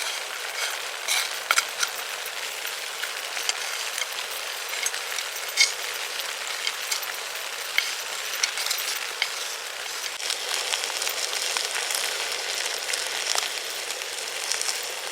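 Bacon and other food frying in a hot pan on a camping stove: a steady sizzle with scattered sharp pops.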